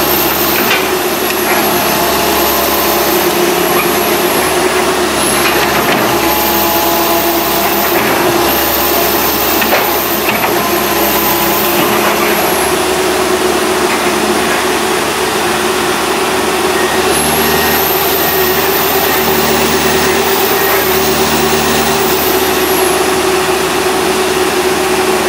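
Komatsu PC160 hydraulic excavator's diesel engine running steadily under work, with a high whine that rises and falls and a few faint knocks.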